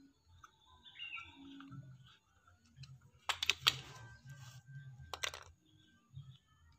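Small plastic blender parts clicking and clattering as they are handled: the white cup base and its small black drive gear. A burst of sharp clicks comes about three and a half seconds in and another just after five seconds, with a short bird chirp about a second in.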